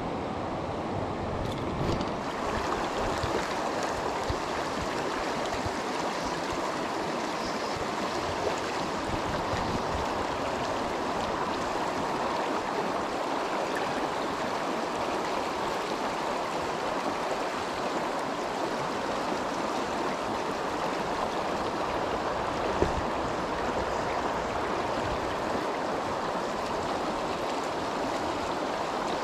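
River water rushing steadily over stones.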